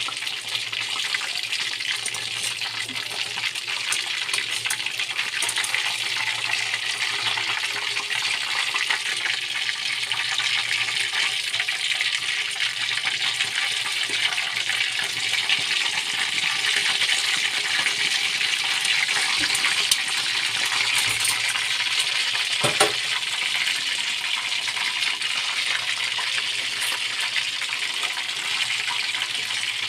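Battered chicken pieces deep-frying in hot oil in a wok: a steady sizzle with dense crackling of the bubbling oil. One brief knock about two-thirds through.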